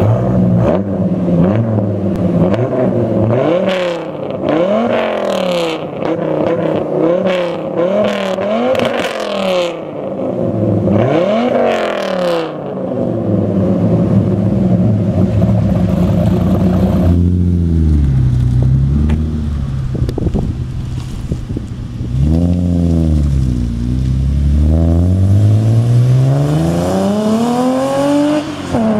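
1997 Dodge Viper GTS's V10 engine blipped repeatedly through its exhaust, the note rising and falling with each rev, then settling to a steady idle. About two-thirds of the way in it gives way to a Mitsubishi Eclipse with an RPW header, Hushpower II resonator and Invidia cat-back exhaust, which revs and then accelerates with a long rising note.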